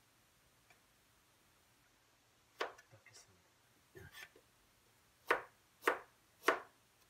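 Chef's knife chopping fresh ginger on a cutting board: a few light knocks partway through, then three sharp chops about half a second apart near the end.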